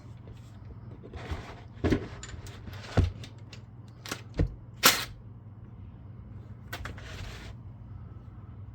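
Hand tools and metal parts knocking and clinking against each other, four or five sharp knocks over about three seconds with short rustles, during work on a dirt bike's oil drain.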